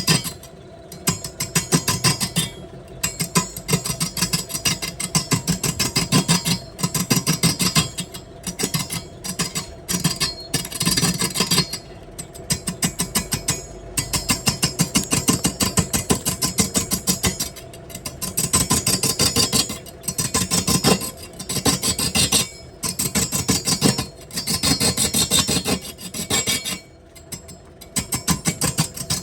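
A tool rasping against wood turning on a lathe: rapid, evenly repeated scraping strokes in runs broken by short pauses, over a steady machine hum.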